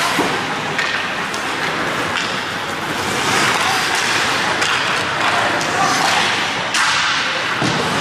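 Ice hockey play on a rink: skate blades scraping the ice, with sticks and puck clacking in short sharp knocks and a louder hit near the end.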